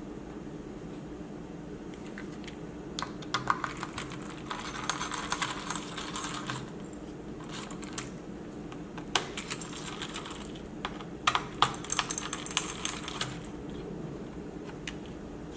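Clicks, taps and light scraping from hands working on a laptop's internals, in two busy spells a few seconds long, over a steady low hum.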